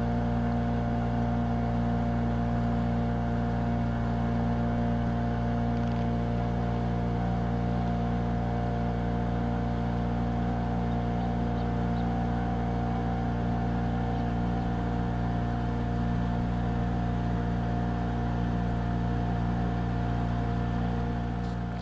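A boat's engine running steadily at constant speed, heard from on board as a low, even drone. It begins to fade at the very end.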